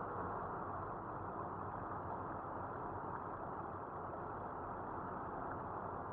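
Steady engine and road noise of a car heard from inside its cabin while driving.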